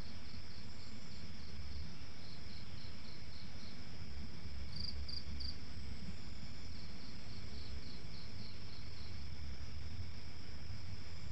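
Night insects: crickets keep up a steady high trill while short chirps come in runs of about three or four a second, over a low steady rumble.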